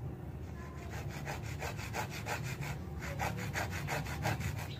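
A thin hand-held saw blade sawing into a small strip of wood in quick short back-and-forth strokes, about six a second. The strokes come in two runs with a brief pause in the middle, over a steady low hum.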